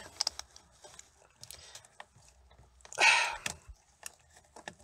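Hands working plastic fibre-optic connectors and wiring in a car's harness: a few light clicks and small handling noises, with a short burst of breathy noise about three seconds in.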